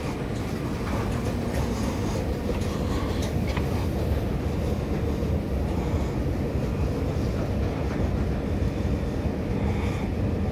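Steady low rumble of a long escalator descending into an underground metro station, with a few faint clicks.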